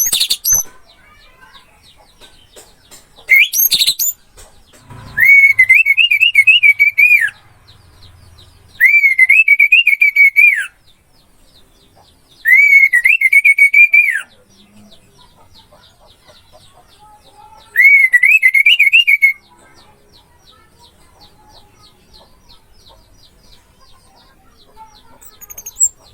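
Orange-headed thrush song: four loud warbling phrases of about two seconds each, spaced several seconds apart, with a short high call a few seconds in. Faint, fast chirping runs behind the phrases.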